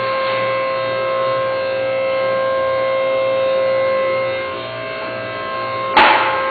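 Steady multi-toned whine of a Car-o-Liner frame bench's pump running during a frame pull, over a low pulsing hum. A single sharp metallic bang comes about six seconds in.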